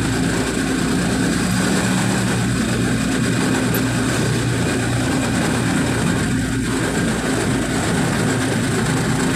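Engine and road noise of a vehicle, heard from on board as it drives along at a steady speed, with a constant low drone.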